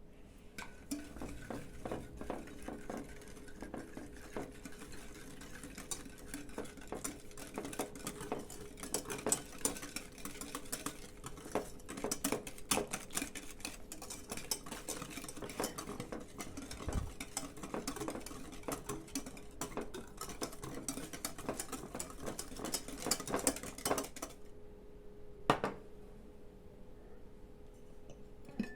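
A metal utensil beating batter by hand in a bowl, with rapid irregular clicks against the bowl's side, over a faint steady hum. The beating stops about 24 seconds in and is followed by a single knock a second or so later.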